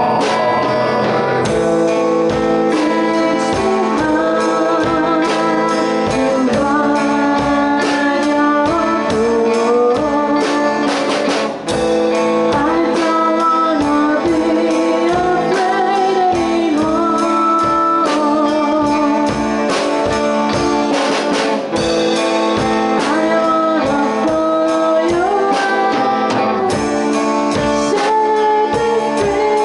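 A band playing a song: a horn melody over guitar and a steady beat.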